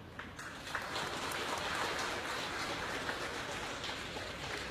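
Distant crowd applause, a spread of many hand claps that swells about half a second in and thins toward the end.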